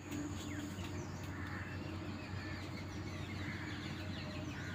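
Outdoor ambience of many small birds chirping and calling in short, scattered notes over a steady low hum.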